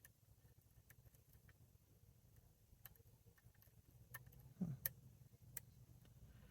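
Faint, irregular metal clicks and ticks of a lock pick and tension wrench working the pins of a NU-SET padlock's Euro cylinder, with a louder cluster of clicks and a short knock a little before five seconds in.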